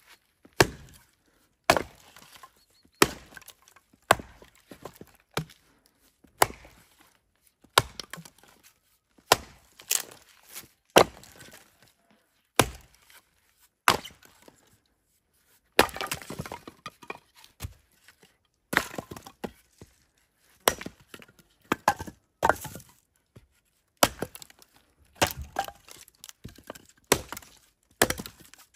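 Axe blows splitting firewood: a sharp chop about every second or so, each followed by a short crackle of wood splitting apart. About sixteen seconds in there is a longer stretch of cracking and splintering.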